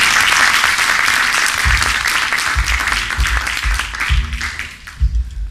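Audience applause that fades away over about four seconds, while a bass starts playing low notes about a second and a half in, opening a song.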